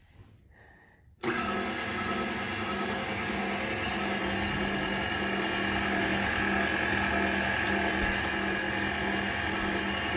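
Electric stand mixer switched on about a second in and then running steadily, its motor and gears whipping egg white and sugar.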